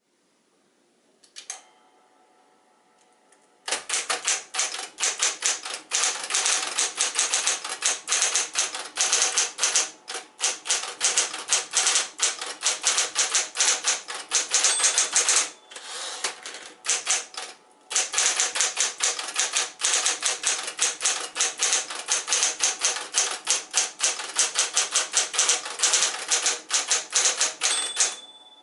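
Smith-Corona Coronet electric typewriter, fitted with new drive belts. A click about a second and a half in is followed by the motor's steady hum. From about four seconds in, fast, dense typing with the electric keystrokes rattling, broken by two short pauses, and a brief ring near the end.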